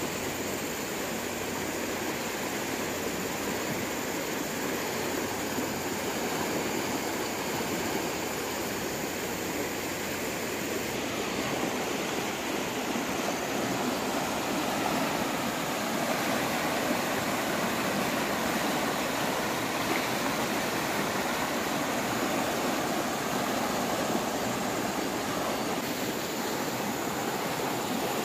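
Swollen, fast-flowing river rushing past the bank at high water: a steady noise of turbulent current, growing a little louder about halfway through.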